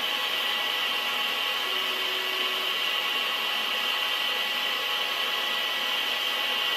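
Large metal-working lathe running and cutting: a steady machining hiss with a constant high whine.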